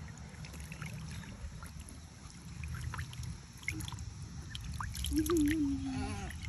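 Water sloshing and trickling in a shallow plastic paddling pool as ducklings paddle about, with short faint duckling peeps now and then.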